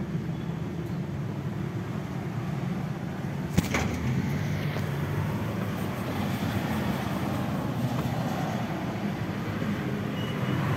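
Motor vehicle running steadily with tyre noise on a wet road, with one sharp click about three and a half seconds in.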